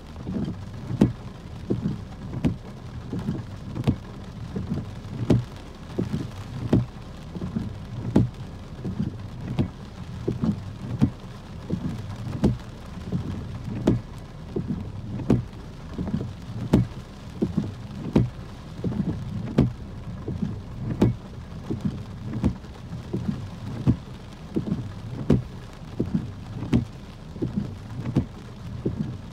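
Heavy raindrops striking the roof and windshield of a car, heard from inside: an irregular patter of sharp knocks, about two or three a second, over a low rumble of rain.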